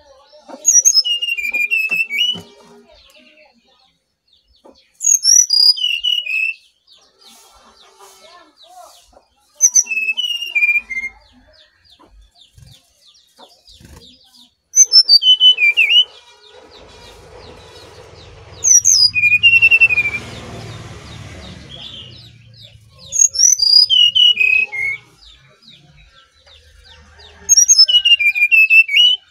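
Brown-chested jungle flycatcher singing: seven short phrases of clear whistled notes falling in pitch, each about a second and a half long, about every four seconds. A faint low rumble and hiss comes up behind the song about halfway through.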